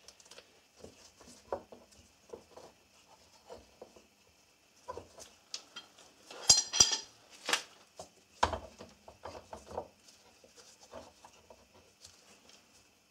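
Scattered clicks and knocks of steel bar clamps and wooden clamping blocks being handled and set on a wooden workbench. A louder metallic clatter comes a little past the middle, followed by a thump.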